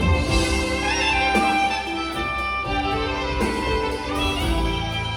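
Live band music from a saxophone duet sound check: held melody notes over sustained bass notes.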